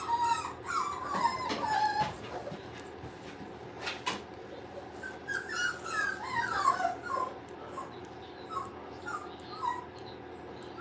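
Bulldog puppy whimpering in short, wavering high whines, in two bouts: one in the first two seconds and another about five to seven seconds in. A single faint knock near the middle.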